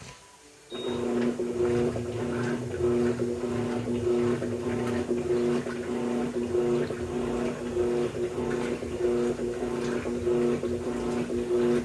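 Electrolux LT13B top-loading washing machine agitating: its motor starts about a second in and hums steadily, with short regular breaks as the agitator changes direction, over water swishing in the tub.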